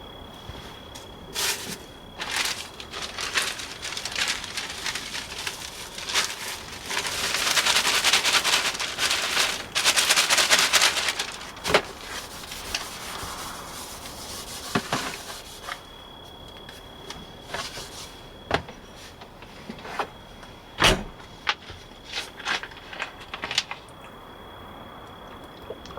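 Dishes and cutlery clinking and knocking as they are washed by hand, with a few seconds of steady hissing, like tap water running, partway through.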